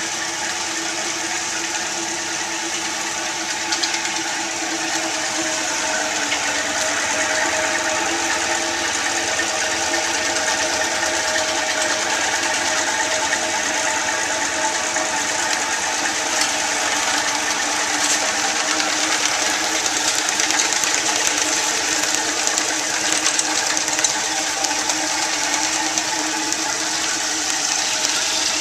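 Rose Mfg. 20-inch Rociprolap vibratory flat lap running steadily: an even motor hum under a continuous gritty hiss, with scattered small clicks as rock specimens in their retaining rings work across the pan in 500-grit slurry.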